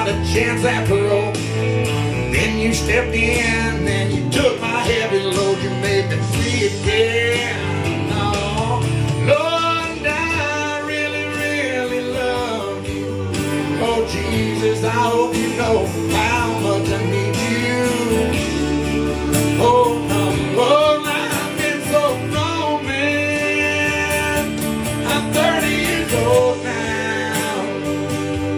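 Country song on a steel-string acoustic guitar, strummed and picked, with a man's singing voice over it.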